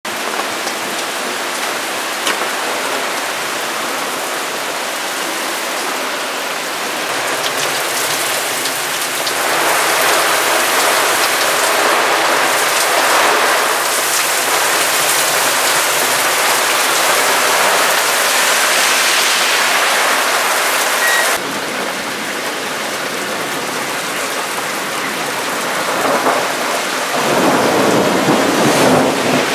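Heavy thunderstorm rain pouring down, a dense steady hiss that grows heavier about a third of the way in and drops back suddenly about two-thirds through. Near the end, rainwater runoff gushes along a flooded roadside gutter.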